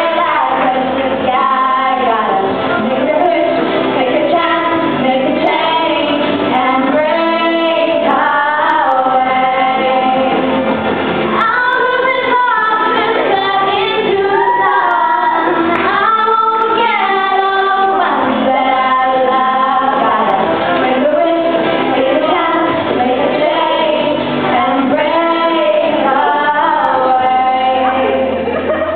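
Two girls singing a song into microphones, with musical accompaniment behind them.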